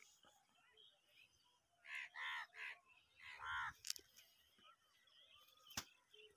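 Crow cawing outdoors: three quick caws about two seconds in, then one longer caw a second later. Two sharp clicks follow, the second near the end.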